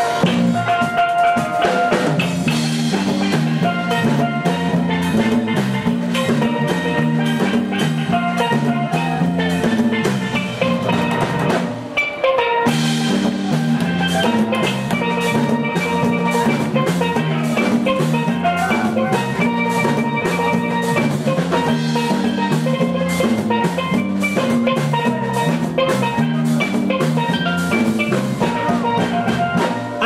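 Steel band playing an instrumental passage: steel pans carrying a bright melody over a steady groove of drums. The music thins briefly about twelve seconds in, then resumes.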